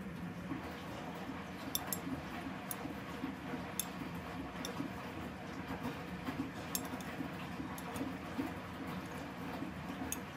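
Nortec Primus P6 commercial washing machine running a big load of coloureds: a steady hum with irregular mid-pitched rumbling, and a few sharp clicks several seconds apart.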